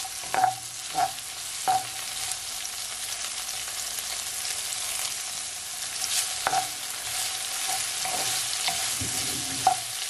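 Sliced carrot, tomato and onion sizzling in hot oil in a non-stick wok with a steady hiss, while a wooden spoon stirs them, scraping and knocking against the pan a few times.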